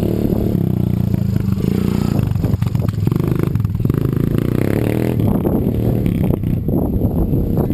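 An engine running steadily, with clattering and scraping noises mixed in over the second half.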